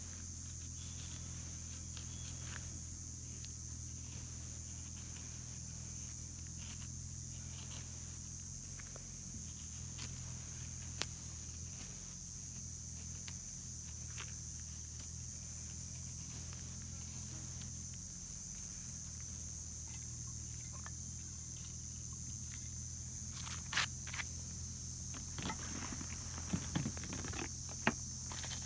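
Steady high-pitched insect chirring over a low steady hum, with scattered light clicks and knocks that come thicker near the end.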